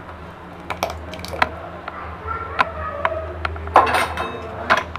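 Kitchen utensils clinking and knocking against a steel cooking pot: scattered light clinks, with the two loudest just before the end, over a steady low hum.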